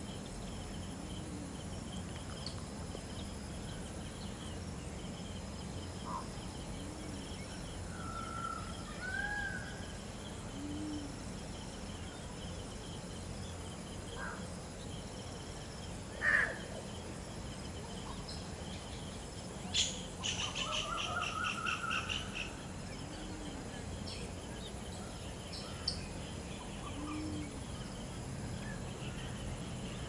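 Wetland field ambience: steady high insect chirring, with scattered calls of unseen birds. A short sharp call stands out about sixteen seconds in, a quick run of chirping notes follows a few seconds later, and a low note recurs every few seconds.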